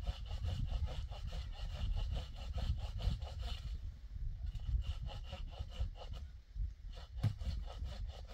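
Rhythmic back-and-forth scraping strokes, about five a second, with a short pause about four seconds in, then a few sharper knocks near the end.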